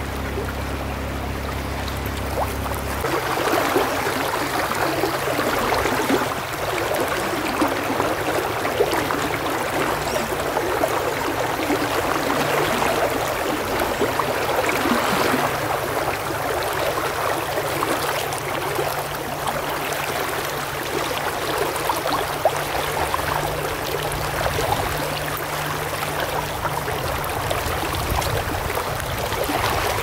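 Shallow river riffle: water rushing and splashing over rocks close to the microphone, a steady, fluctuating rush.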